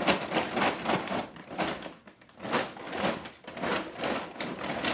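Brown paper bag being shaken hard, the corn Chex snack mix and powdered sugar inside rustling and rattling in rhythmic shakes, roughly two to three a second, with a brief pause about two seconds in.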